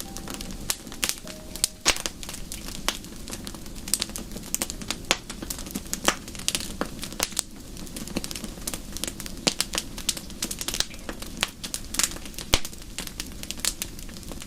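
Wood fire in a fireplace crackling, with irregular sharp pops and snaps over a steady low rush.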